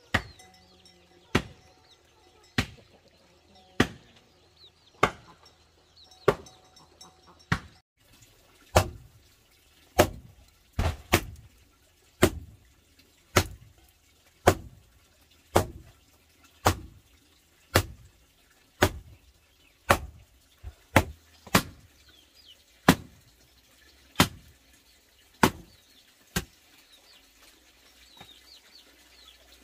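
Steady rhythmic thuds, about one every second, of feet stamping on a loose earth floor to pack it down.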